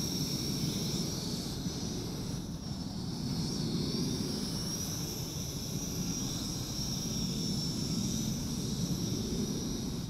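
Mould King 33043 Super F micro quadcopter's motors and propellers whining in flight, the high pitch wavering up and down as the throttle changes.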